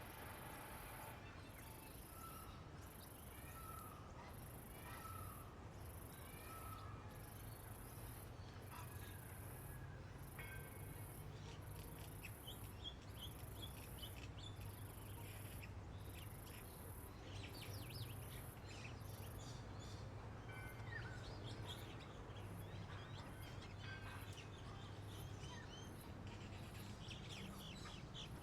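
Songbirds chirping: a short note repeated about once a second early on, then more varied, higher chirps. Underneath, an insect keeps up a very high-pitched pulsing buzz about once a second, which turns shorter and fainter in the last third, over a low steady background hum.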